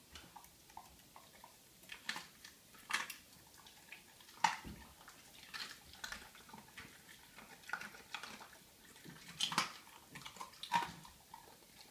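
Swiss white shepherd dog eating raw meat from a stainless steel bowl: irregular wet mouthing and sharp clinks of teeth and food against the metal bowl, loudest about four and a half seconds in.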